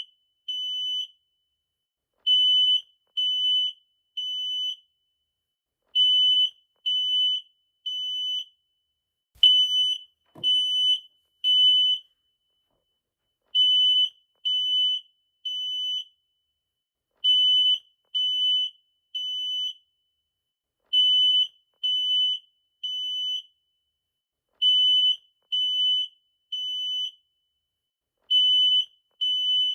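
Smoke detector alarm sounding its piezo beep in the temporal-three pattern: groups of three loud, high-pitched beeps, each about half a second long, repeating about every three and a half seconds. This is the standard smoke alarm evacuation signal.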